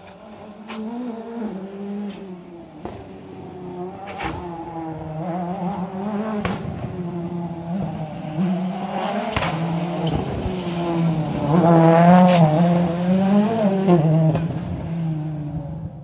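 A World Rally Car's turbocharged four-cylinder engine running hard along the stage, its pitch rising and dropping with throttle and gear changes, with several sharp cracks. It grows louder to pass closest about twelve seconds in, then fades.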